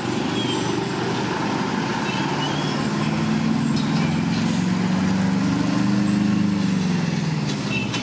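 A motor vehicle's engine passes close by over steady road-traffic noise. The engine grows louder through the middle and fades near the end.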